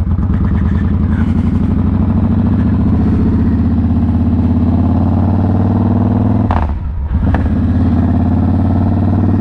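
Victory Hammer V-twin motorcycle engine pulling under throttle on a test ride, its pitch climbing steadily. About six and a half seconds in the revs drop off briefly, then it picks up and runs steady again.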